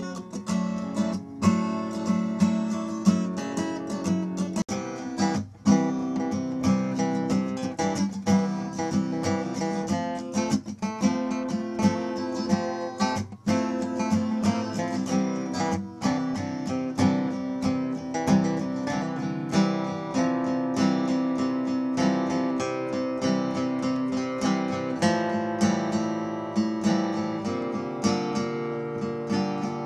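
Acoustic guitar music, chords and notes plucked in a steady flow with a few very brief breaks.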